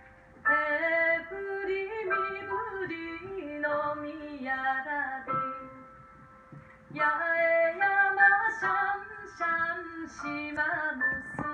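A woman singing a slow song, accompanied by piano and a sanshin. The voice breaks off for about a second a little past halfway, then comes back in.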